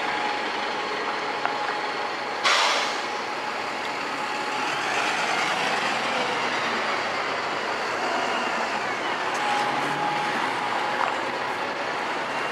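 City buses running as they pull through a bus station, with a steady engine whine. About two and a half seconds in, a sudden loud hiss of compressed air from an air brake fades away within half a second.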